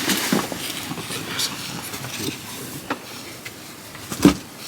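Boxes and a pillow being shifted around on a high closet shelf: rustling and scattered light knocks, with one louder thump near the end.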